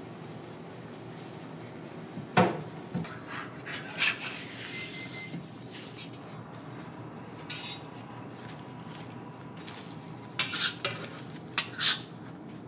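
Metal crepe spatula clicking and scraping against a steel crepe griddle as a crepe is lifted and folded. There is a sharp clatter about two and a half seconds in, scattered taps after it, and a quick cluster of scrapes and clicks near the end, over a steady background hiss.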